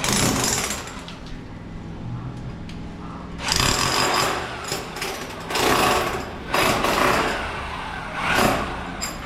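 A handheld power tool cutting into wood, run in several separate bursts of about a second each, with a low hum between them.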